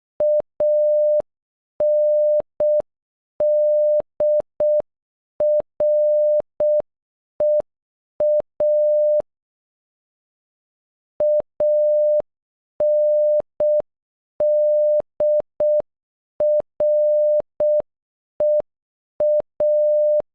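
Morse code for "ANDREA" (.- -. -.. .-. . .-) sent at half speed as a steady mid-pitched beep keyed on and off in short dots and long dashes. The word plays twice, with a pause of about two seconds between.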